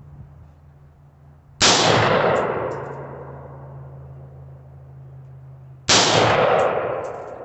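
Two single shots from an AR-15 rifle, about four seconds apart, each followed by a long echo that dies away.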